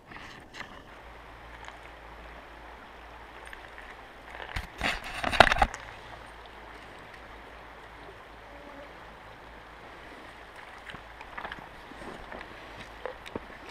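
River water flowing steadily over a cobble bed, with a loud burst of knocking and scraping about five seconds in.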